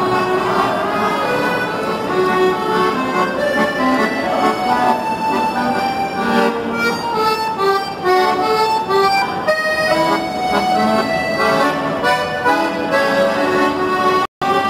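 Piano accordion played solo: a melody of many quick notes over held chords. The sound cuts out for a split second near the end.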